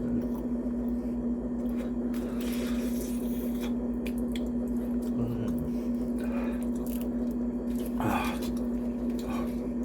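Close-miked eating: wet chewing and squishing of mini tacos with cheese sauce, with scattered mouth noises, over a steady low electrical hum.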